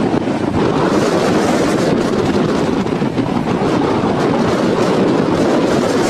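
Large waterfall's falling water rushing in a loud, steady wash of noise.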